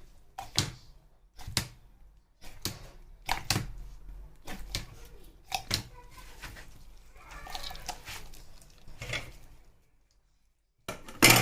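Knife cutting raw chicken leg quarters on a cutting board: a series of sharp knocks about once a second, with handling noise between them and one loud knock near the end.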